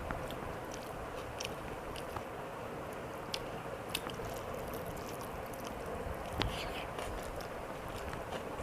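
A person chewing and eating a meal close to the microphone, with soft mouth sounds and a few small clicks over a steady background hiss.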